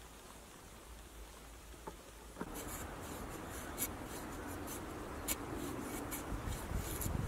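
A knife shaving thin curls off a split stick of dry wood to make a feather stick, heard as a series of short scraping strokes that starts about two and a half seconds in, after a quieter stretch.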